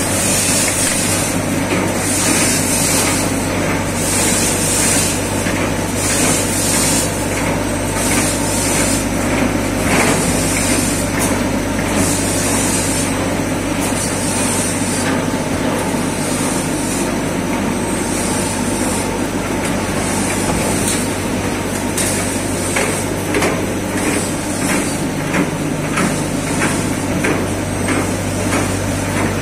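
Toilet paper and kitchen towel converting line running: a steady machine drone with a short hiss about once a second. From about two-thirds of the way through, sharp clicks about twice a second join in.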